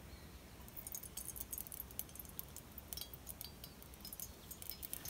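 Faint, irregular crackling ticks of olive oil heating in a small camping pot on a gas stove, starting about a second in.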